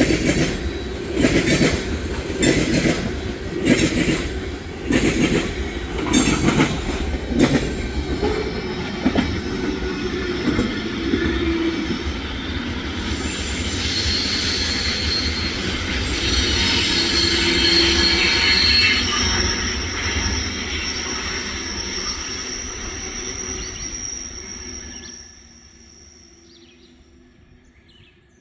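Tank cars of a freight oil train rolling past: wheels clicking over rail joints in a steady rhythm about once a second, then a continuous rolling rumble with high-pitched wheel squeal, dropping away sharply near the end as the train clears.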